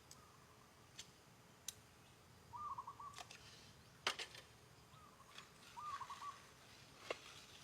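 A bird calling twice in the distance, each call a short run of quick repeated notes, over faint background ambience with a few sharp clicks.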